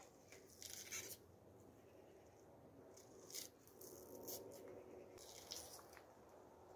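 Faint, short scrapes and crackles of a small paring knife peeling the dry papery skin off a white onion. The strokes come a few at a time, scattered through.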